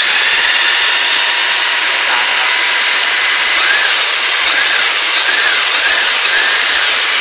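A toy 1:10-scale RC pickup's electric drive motor and gears whirring steadily at full throttle, its wheels spinning freely in the air, in normal power mode rather than the twin-battery turbo mode.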